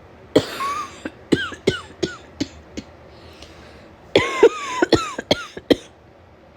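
A woman coughing in two fits of several coughs each, the first starting about half a second in and the second about four seconds in; the cough goes with a head cold.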